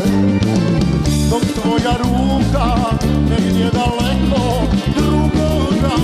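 Live Balkan folk band music with a steady beat on drum kit and bass, an accordion, and a man singing into a microphone.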